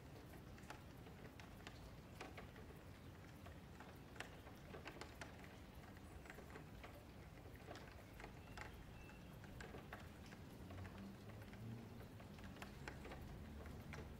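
Near silence with faint, irregular clicks of a computer mouse and keyboard over a low hum.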